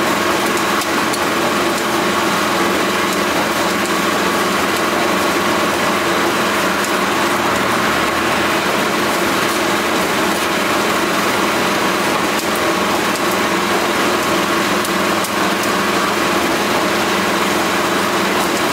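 A machine running steadily: an even mechanical drone with a few fixed tones in it, unchanging in level.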